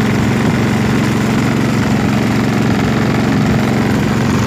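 Small boat engine running steadily at an even pace, with a fast regular pulse.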